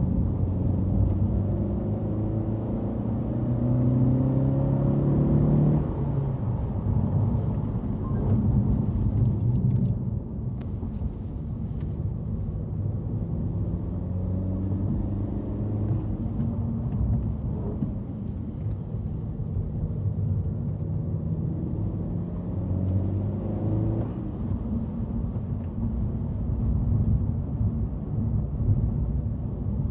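Honda Civic Hatchback FK7's ECU-tuned 1.5-litre turbocharged L15C four-cylinder pulling through the gears of its six-speed manual. The engine note climbs under load, then drops sharply at each gear change, several times over.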